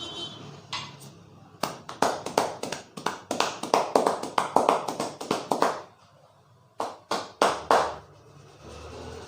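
A barber's hands striking rapidly in a percussive head massage, about five slaps a second for some four seconds, then after a short pause three more.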